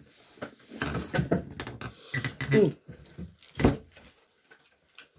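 Muffled swishing and mouth noises from a mouthful of foaming baking-soda toothpaste and water, with a short falling hum through closed lips about halfway through and a sharp knock soon after.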